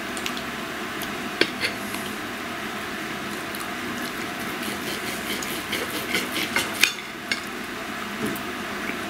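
Metal cutlery clicking and scraping against a plate while eating, with scattered sharp clicks: two about a second and a half in, then a cluster between about five and seven seconds in.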